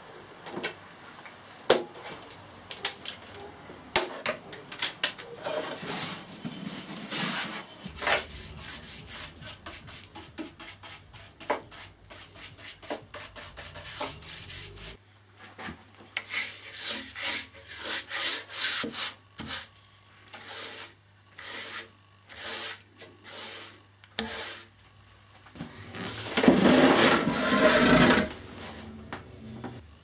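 Hand work on a pine shoe rack: a ratchet wrench clicking as it turns, then a paintbrush swished over the boards in short separate strokes about once a second. A louder, longer stretch of noise comes near the end.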